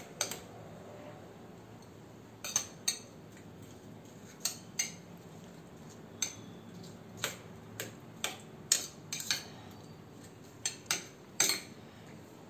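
A spoon clinking against a bowl while stirring a fruit salad: short, sharp, irregular taps, roughly one every second.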